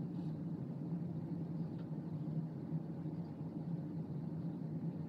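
Steady low hum of room ventilation, with no other sound standing out.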